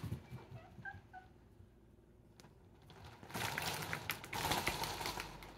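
A house cat giving two short, faint chirps about a second in, followed by about two seconds of scuffling noise with small clicks.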